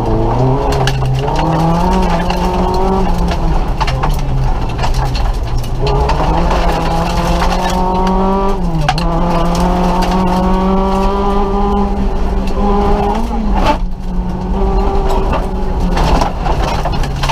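Nissan Micra rally car's engine revving hard through the gears, heard from inside the cabin: the pitch climbs in each gear and drops back at the shifts, with a brief lift about nine seconds in and a sharper break near fourteen seconds.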